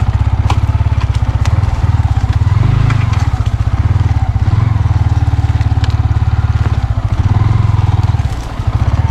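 Yamaha MT-15's single-cylinder engine running at low revs, its throttle swelling and easing a few times and dipping briefly near the end as the bike is ridden over rough off-road ground, with scattered clicks of stones under the tyres.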